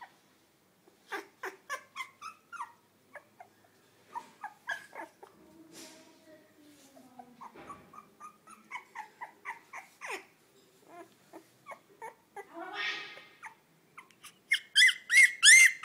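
Young puppy whimpering and squeaking in a long string of short, high cries, ending in louder high-pitched squeals in the last second or so.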